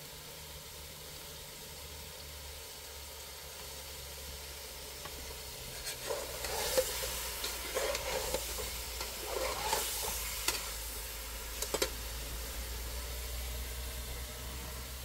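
A low steady hum, with a run of scraping, rustling and sharp clinks through the middle, as of utensils or objects being handled.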